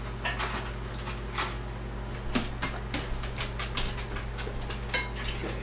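Scattered light clinks and clicks of metal cutlery and dishes as a fork is fetched, over a steady low hum.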